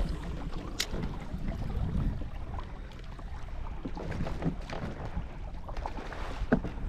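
Wind rumbling on the microphone aboard a kayak, with scattered light knocks and clicks, a sharp click about a second in and a louder knock near the end.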